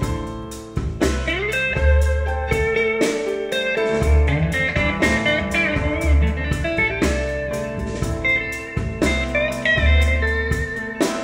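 Blues music played back through Focal Theva N1 bookshelf speakers and picked up by room microphones: an instrumental passage with a guitar lead of bending, sliding notes over deep bass notes that come back about every two seconds.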